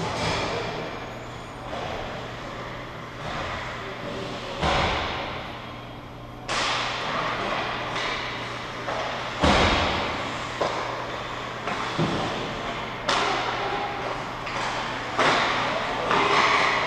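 Ice hockey play at the far end of an indoor rink: sharp clacks of sticks and puck and hits against the boards, about a dozen at irregular intervals, each echoing through the arena, over a steady low hum.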